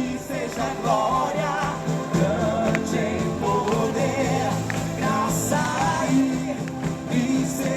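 Live gospel worship song: a band playing with singing over it.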